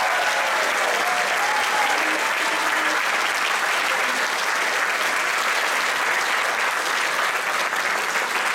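Applause from a large group clapping, steady and sustained.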